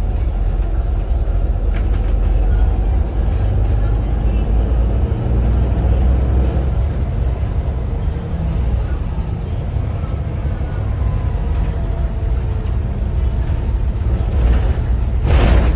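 Volvo B7RLE single-decker bus on the move, heard inside the saloon from the rear seats: a steady low drone of its diesel engine, mixed with road noise. Near the end, a brief, loud burst of noise.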